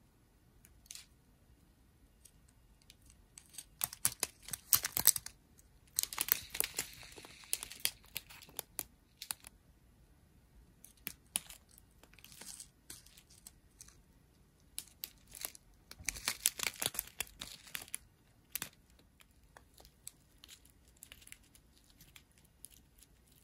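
Thin plastic bags of diamond-painting drills crinkling and crackling as a strip of them is handled, in several bursts with quiet gaps between.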